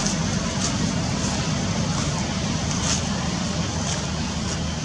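Steady low rumble under an even hiss, with a few faint high ticks.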